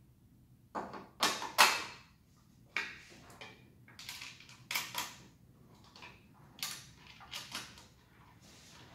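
Plastic and metal parts of an electric chainsaw being handled and fitted together, the side cover set down over the bar and chain and pressed onto the body: a series of irregular clacks and scrapes, the loudest about a second and a half in.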